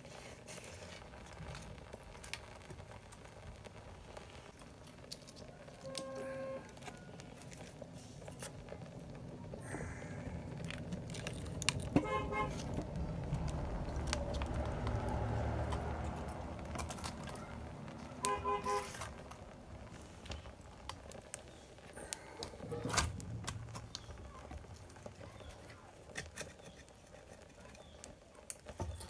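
Wood fire crackling in a clay stove, with scattered sharp pops. Midway a vehicle rumbles past in the background, and twice, about six seconds apart, a short run of rapid horn-like beeps sounds.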